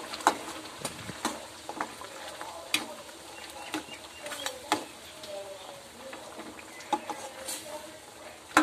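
A metal ladle stirring thick, bubbling gravy in a steel kadai, with sharp knocks and scrapes of metal on metal every second or so, the loudest near the end.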